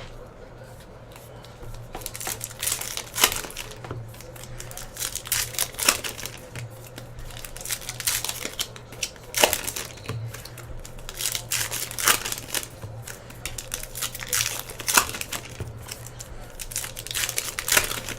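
Trading-card pack wrappers being torn open and crinkled by hand, with many irregular sharp crackles.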